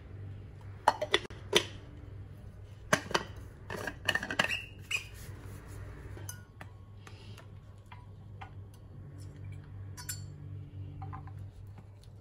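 Insulated stainless-steel food jars and their plastic lids being handled: sharp clinks and knocks of metal and plastic, in a few clusters in the first five seconds, then sparse light taps, over a steady low hum.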